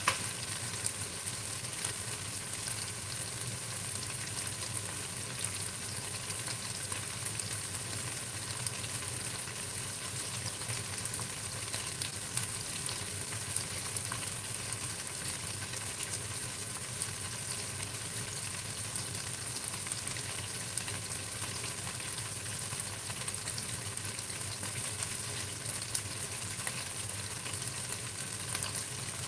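Marinated chicken wings frying in hot oil in a pan: a steady sizzle with many small crackles.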